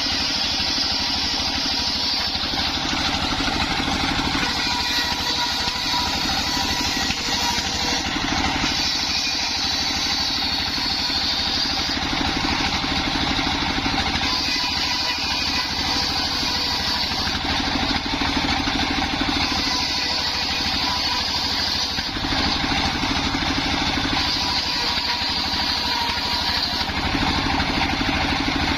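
Small engine running steadily, driving a homemade circular saw rig, with a high whine that comes and goes in stretches of a few seconds.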